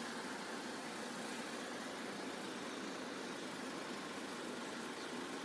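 Steady background hum of road vehicles idling, with an even hiss and no distinct events.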